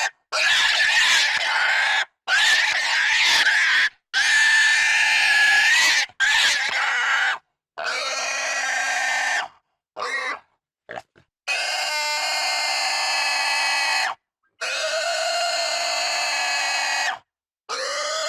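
Pig squealing intensely: a string of loud, shrill squeals of a second or two each, separated by short silent gaps, with two brief short squeaks about ten seconds in.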